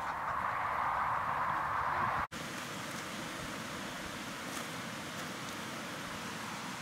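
Steady outdoor background hiss with no distinct event. It is louder for the first two seconds, drops out sharply for an instant about two seconds in, then continues more evenly and slightly quieter.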